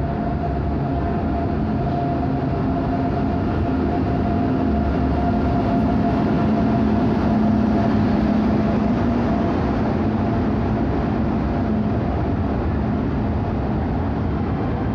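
Express passenger train pulling into a station platform, its coaches rolling steadily past. A low tone swells about halfway through.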